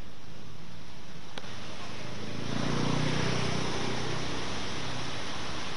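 Outdoor street ambience: a steady wash of traffic noise, with a vehicle engine swelling and fading about halfway through as it passes.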